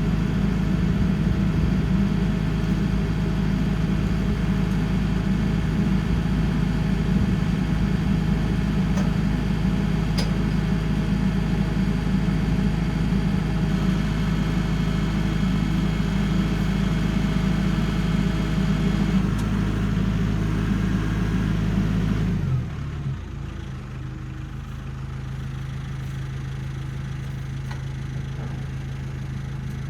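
Tractor engine running steadily at raised throttle, then dropping to a lower, steady idle about three-quarters of the way through.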